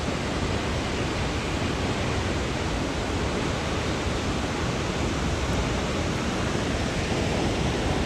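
Large waterfall in full, high flow: a steady, even rush of falling water.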